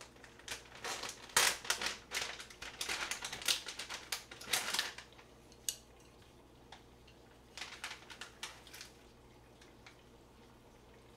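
Kitchen handling noise: a run of sharp crinkling and clattering for the first few seconds, then a shorter, quieter patch of clicks as wooden chopsticks work noodles in a stainless steel bowl.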